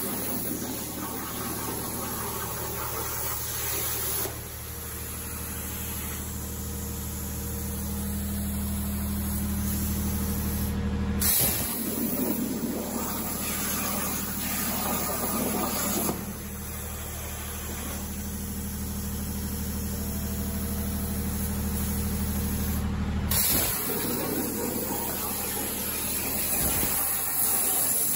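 CNC plasma torch cutting 12 mm steel plate at 90 amps: a loud, steady hiss of the arc and its air jet over a low, steady hum. The hiss is briefly interrupted twice.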